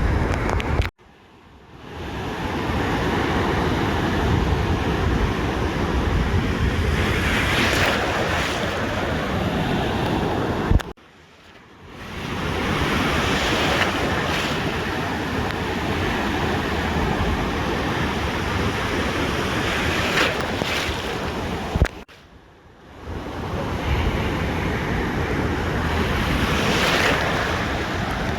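Ocean surf washing onto a beach, with wind buffeting the microphone; the waves swell every six or seven seconds. Three times the sound cuts out abruptly, about a second, eleven seconds and twenty-two seconds in, then fades back in.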